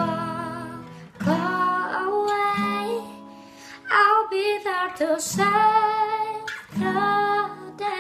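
A young woman singing phrases with gliding, ornamented pitch over her own acoustic guitar chords.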